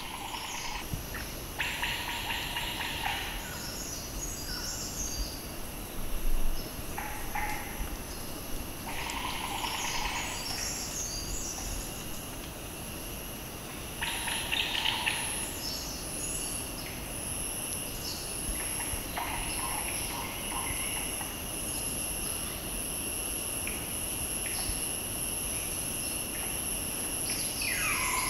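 Forest ambience: a steady, high-pitched insect drone with birds calling now and then, one call falling in pitch near the end. A brief low thump about six seconds in is the loudest moment.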